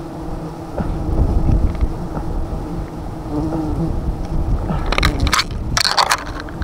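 A swarm of disturbed honeybees buzzing around their opened comb as it is cut away, making a steady droning hum. A plastic bag crinkles in two short bursts about five and six seconds in.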